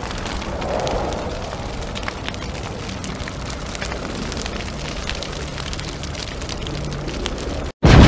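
A steady rushing rumble scattered with many small crackles and pops. It cuts off abruptly near the end.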